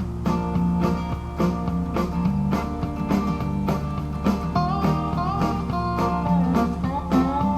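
Instrumental country-rock intro: guitars playing a bouncy riff over a steady drum beat, with some notes bending upward in slide-guitar style.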